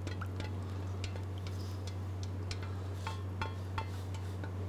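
Light, scattered metallic clicks and ticks of a saucepan rim and wire whisk against a stainless steel mixing bowl as hot puree is poured in, over a steady low hum.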